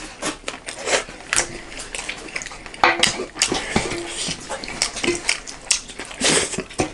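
Close-miked eating over a meal of rice and roast chicken wings: chewing and lip smacking with irregular sharp clinks of plates and utensils.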